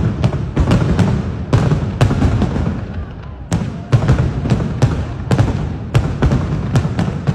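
Fireworks going off in quick succession: sharp bangs and cracks several times a second over a continuous low rumble of distant bursts, easing briefly about three seconds in.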